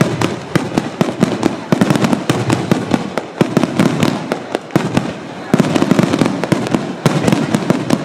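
Fireworks exploding in a rapid, continuous barrage of booms and cracks, easing briefly about five seconds in before resuming at full intensity.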